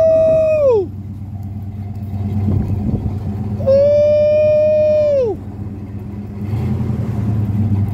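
1968 Chevrolet Impala's 327 V8 idling with a steady low hum. Over it, two loud long held tones, the first cutting off just under a second in and the second starting about four seconds in and lasting about a second and a half, each sliding down in pitch as it stops.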